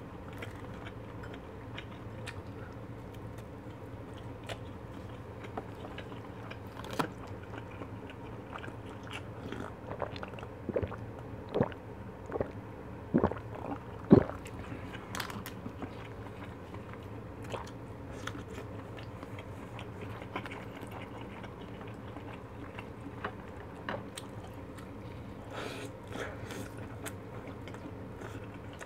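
Close-miked mouth sounds of eating Korean fried foods (twigim) and fish cake: biting, crunching and chewing, with small clicks. Around the middle come a few louder sharp sounds as a cup of juice is drunk.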